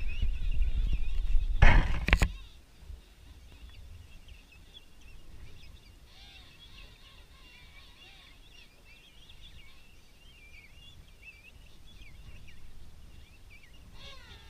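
Loud rumble and knocks on the microphone for about the first two seconds. Then a colony of king penguins calls, with many faint, wavering trumpeting calls overlapping throughout. A nearer, stronger call begins near the end.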